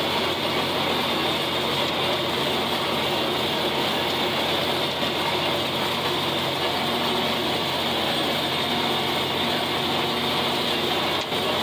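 John Deere 4020 tractor's six-cylinder engine running steadily under load while driving a brush hog rotary cutter through a field, heard from the operator's seat.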